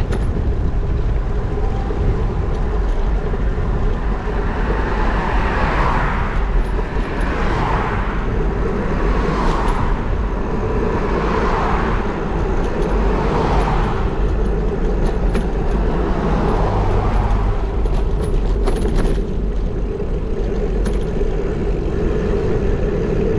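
Wind rumbling on a bike-mounted action camera's microphone while cycling along a road. Over it, a string of passing cars, one about every two seconds, each swelling and fading.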